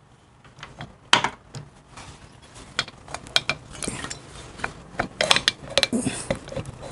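Cast-iron cylinder barrel of a Harley Knucklehead being eased up off its piston by hand: irregular light metallic clicks, clinks and scrapes, with a sharp click about a second in and a quicker run of clicks near the end.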